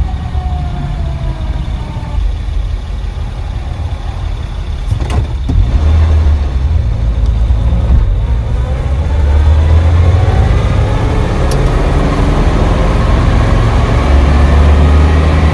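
1937 Terraplane pickup's straight-six engine pulling the truck along the road, heard from inside the cab. The engine note falls at first, a click comes about five seconds in, then the note rises and grows louder as the truck accelerates.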